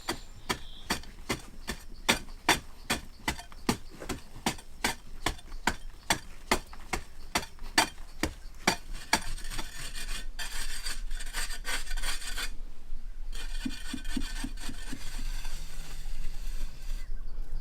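A hand tool rasping or scraping in quick regular strokes, about three a second, then turning into a steadier rasping with a short break near the end.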